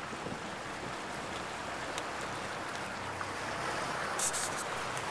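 Steady rush of water and wind from a boat moving across open water, with a short burst of high hiss about four seconds in.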